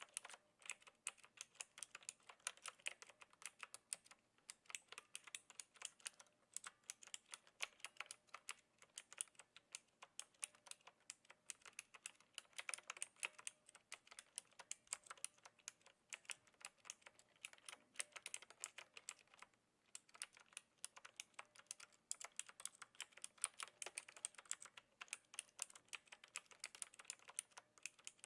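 Clicky blue-switch keys of a Knewkey Rymek typewriter-style mechanical keyboard, typed on with a gentle touch: a continuous run of rapid key clicks, broken by a few brief pauses.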